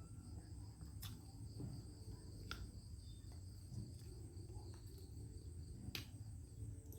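Insects trilling steadily in two high continuous tones, with a few sharp clicks about one, two and a half and six seconds in.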